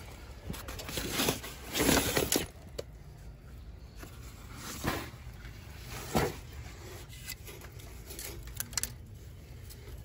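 Intermittent rustling and handling noises with a few short knocks and clicks, over a faint low hum.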